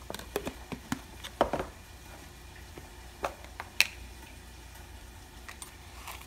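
Kitchen containers handled on a countertop: a plastic snap-on lid pressed onto a can, with a quick run of clicks and a knock. Then come a couple of sharp clicks and a few light taps as a metal tin of sugar is picked up and a metal spoon dipped into it.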